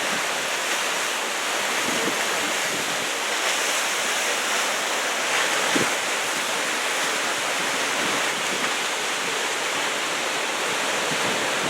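Big typhoon-swell ocean surf breaking, a steady, unbroken rush of noise that swells slightly about halfway through.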